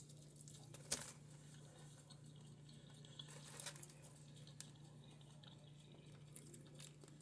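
Near silence: room tone with a faint steady low hum and a few soft clicks, one about a second in and a few more a little past the middle.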